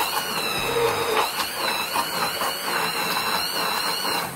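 Electric hand blender running in a pot of boiled toor dal and water, churning the lentils to a purée with a steady whirr and a high, wavering whine. It cuts off just before the end.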